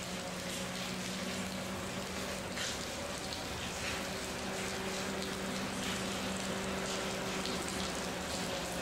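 Distant diesel locomotive running as it approaches: a steady low hum under an even hiss with faint crackles.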